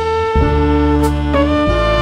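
Live jazz ten-piece playing: a flute holds long notes over chords from saxophones and trombone, with bass notes and drums underneath. The chords change about half a second in and again near the end, and a cymbal is touched about a second in.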